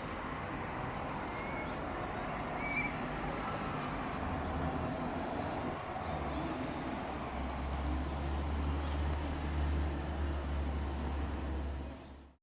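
Steady background noise with a low rumble that builds from about four seconds in and grows stronger before fading out near the end.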